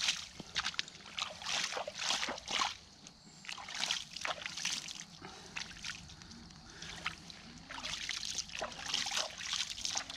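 Water sloshing and splashing in irregular bursts, several a second, with a couple of short lulls.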